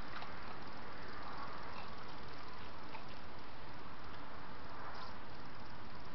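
Steady background hiss with a few faint clicks and rustles from a badger foraging at the foot of a tree.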